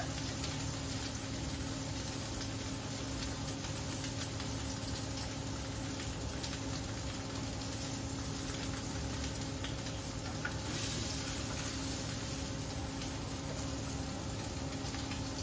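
Sirloin steak searing in a hot frying pan, sizzling steadily, over a steady low hum.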